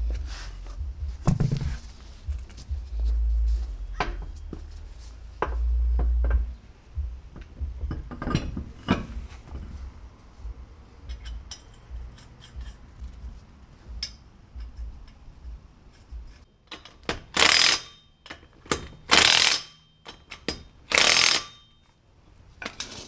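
DeWalt cordless impact wrench run in three short bursts, about two seconds apart, tightening a car wheel's lug nuts. Before that come scattered clanks and knocks as the wheel is hung on the hub.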